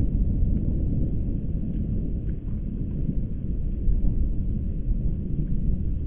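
Atom bomb explosion sound effect: a deep, low rumble that slowly fades, with a few faint crackles.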